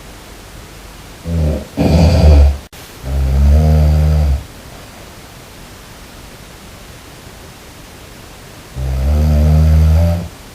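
A person snoring: three loud, low-pitched snores, two close together about two and three and a half seconds in and a third near the end, over a steady hiss.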